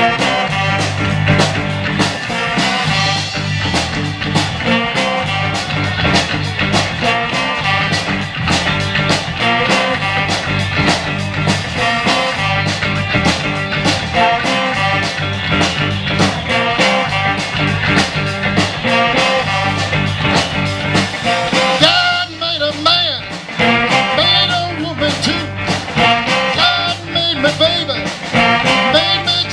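Live band playing an upbeat rock song with a horn section through an outdoor PA: electric guitars, drums, brass and saxophone over a steady beat. The bass and drums drop out briefly about 22 seconds in, then the full band comes back in.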